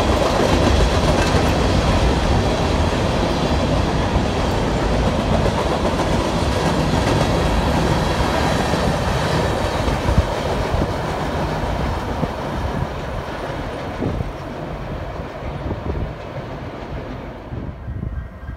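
Freight train of covered hopper cars rolling past: steady wheel-on-rail noise with clickety-clack over the rail joints, growing quieter toward the end.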